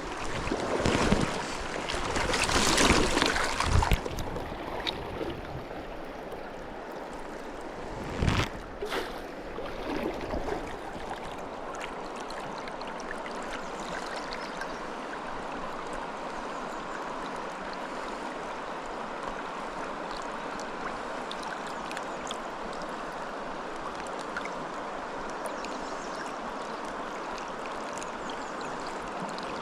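Stream water running steadily. It is louder and rougher for the first few seconds, with a sharp knock about eight seconds in.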